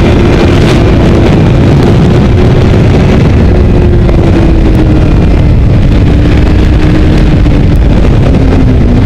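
Honda CBR600RR's inline-four engine running under way at a steady, loud pitch that slowly falls and dips briefly near the end, with heavy wind buffeting on the microphone.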